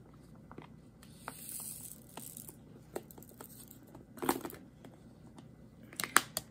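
Small plastic diamond-painting drills rattling as they are poured from a plastic tray, with scattered clicks and taps of the tray; a hissing trickle of drills comes about a second and a half in, and sharper knocks follow near the middle and end.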